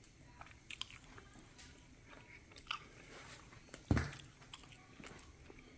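Light scattered clicks and rustles of seasoning being handled and shaken over raw steaks on a wooden cutting board, with one loud thump on the counter about four seconds in.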